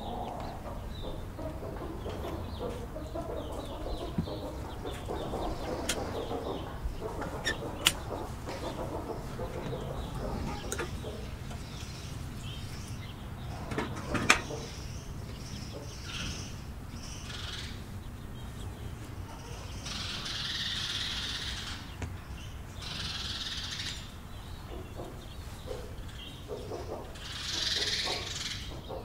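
Bread dough being mixed and kneaded by hand in a metal basin: a few sharp clinks of metal early on, then second-long rustling bursts of hands working the flour and dough, the loudest near the end.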